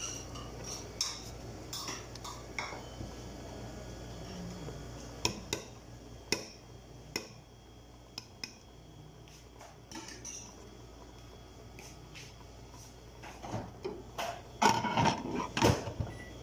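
Metal ladle stirring thick jareesh in an aluminium pressure-cooker pot, with scattered scrapes and clinks against the pot. Near the end comes a cluster of louder metal clanks as the pressure-cooker lid goes on.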